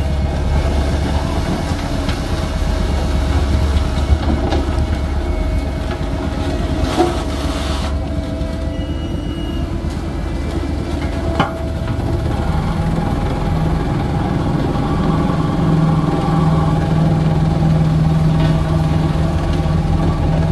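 Heavy truck engine running close by with a steady low drone. A second, higher engine note comes in past the halfway point, and there are a couple of short knocks.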